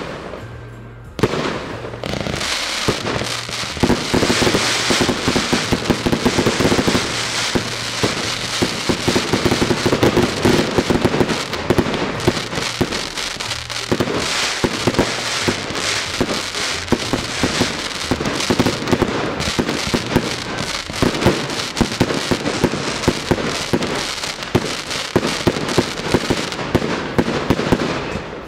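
A fireworks display firing a dense, almost continuous barrage of launches, shell bursts and crackling. It opens with a sharp bang about a second in and ends with a drop in level near the end.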